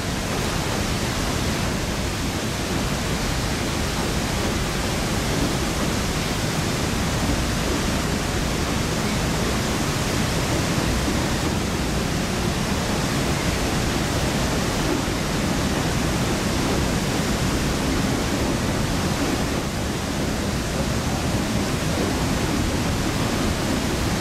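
Steady rushing of river water below the Iowa River dam, mixed with a freight train of tank cars and covered hoppers rolling across the steel girder bridge overhead.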